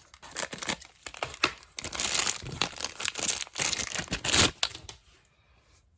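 Plastic packaging crinkling and tearing as it is pulled open by hand, in dense irregular rustles that stop about five seconds in.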